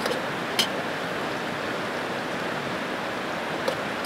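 Metal spoon clinking twice against a steel pot while stirring soup, over a steady rush of creek water.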